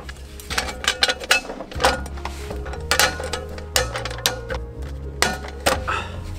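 Irregular clicks, rattles and knocks of camping gear being handled while a tarp and tent are pitched, over background music with a steady low bass.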